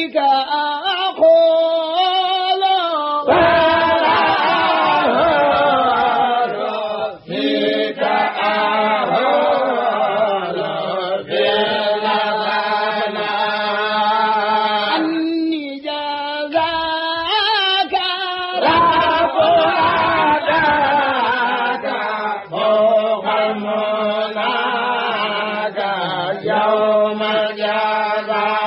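A khassida, a Mouride devotional poem in Arabic, chanted in long held melodic lines, with brief pauses for breath between phrases.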